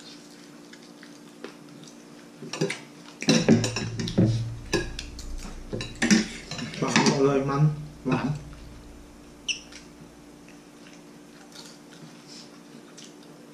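Metal spoons and forks clinking and scraping against ceramic plates and a glass bowl during a meal, in a dense run of clicks through the middle stretch.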